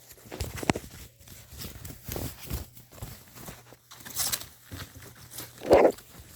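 Clock packaging being handled and unwrapped: scattered rustles, light knocks and clicks, with one short, louder sound near the end.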